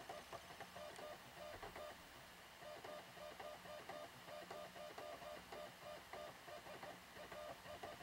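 Faint rapid mechanical chattering in short runs, with a brief lull about two seconds in, over a low steady hum: a 2009 MacBook Pro's optical drive reading the Mac OS X Lion install DVD during a slow boot.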